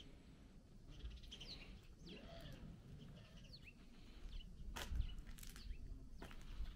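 Faint bird chirps, short falling calls, over a low rumble, with a sharp click about five seconds in.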